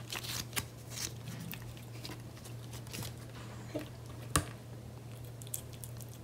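Kitten chewing and licking food: faint, irregular small wet clicks and crunches, with one sharper click about four seconds in. A steady low hum runs underneath.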